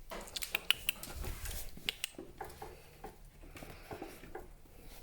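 Parson Jack Russell puppy moving about in a toy doll's pram: a quick run of sharp clicks in the first two seconds, then softer scratchy patter.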